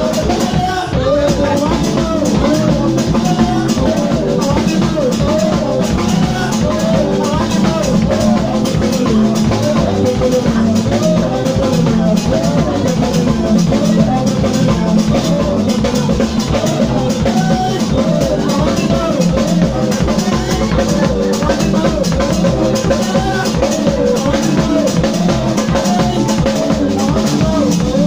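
Live band music: a drum kit keeping a steady beat under electric keyboard and guitar, with a melody line wavering up and down above them.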